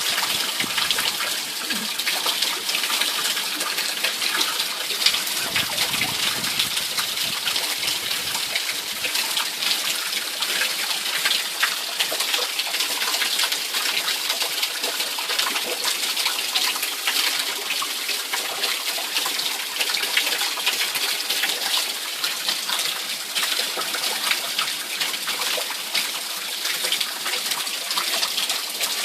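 Heavy rain falling steadily in a hurricane's wind-driven rain band, a dense hiss of drops. About five to eight seconds in, a gust adds a low rumble.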